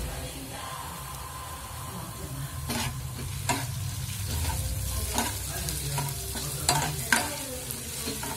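Chopped onions and ginger-garlic paste sizzling in hot oil in a stainless steel pan, stirred with a metal spoon. The spoon scrapes and knocks sharply against the pan several times, mostly in the second half.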